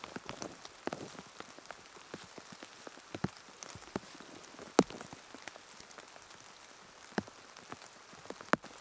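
Steady rain falling on the forest floor and foliage, with scattered sharp ticks, the loudest about five seconds in.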